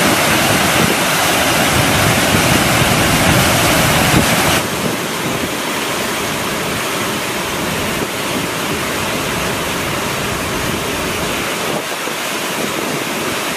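Waterfall in flood after heavy rain: a loud, steady rush of swollen, muddy water pouring over rock ledges. About four and a half seconds in it drops a little in level and turns duller.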